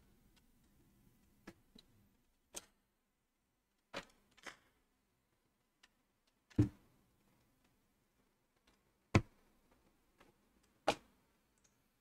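Scattered light clicks and knocks from a microscope being handled and positioned over a laptop motherboard, with three sharper knocks in the second half.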